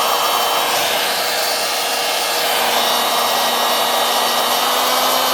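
Warrior 2-amp corded oscillating multi-tool running steadily with no load at its low speed setting 2, a constant motor hum with a lower hum joining about halfway.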